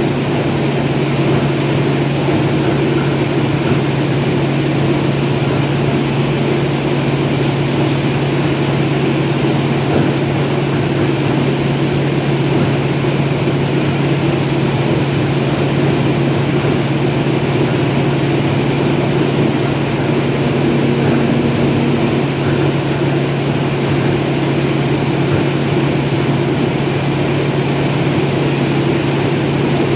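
Steady, loud machine drone with a low hum that holds the same pitch throughout.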